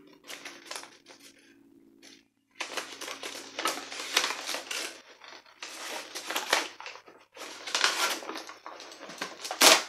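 Cardboard book mailer being torn open and its paper crinkled and ripped by hand, in repeated rustling bursts with one sharp rip near the end. In the first couple of seconds the low drone of an airplane flying by fades out.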